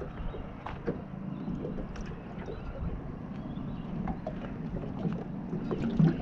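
Water lapping and slapping against a small boat's hull, with a low steady hum, scattered small knocks, and a louder thump about six seconds in.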